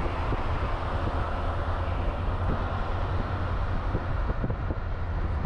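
Steady road and wind noise of a moving car, with a deep rumble underneath.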